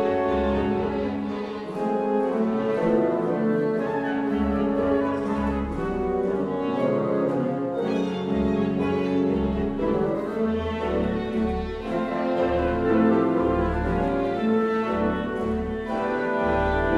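1882 Ladegast pipe organ and a chamber ensemble with bowed strings playing contemporary classical concerto music, with dense held chords over low bass notes that pulse in a rhythm.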